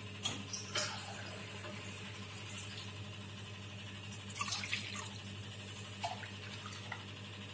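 Water poured from a steel tumbler into a pressure cooker of milk, a soft steady trickle, with a few light clinks of the steel cup against the cooker, two of them about four and a half seconds in.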